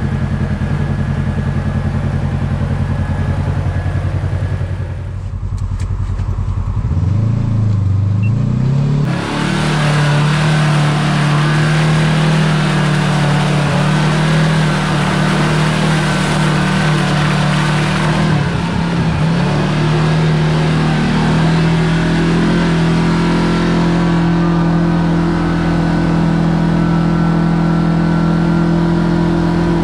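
Kawasaki Teryx KRX side-by-side's parallel-twin engine idling steadily, then dipping about five seconds in and pulling away with a rising pitch. It settles into a steady run under way, with a brief drop in the engine note a little past halfway.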